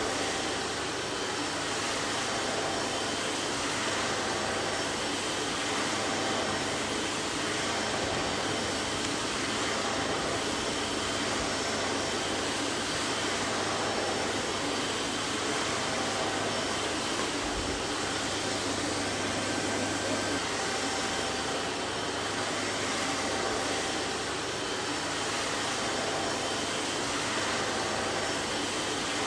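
Vacuum cleaner running steadily: a constant even rush of air noise with a faint motor hum underneath.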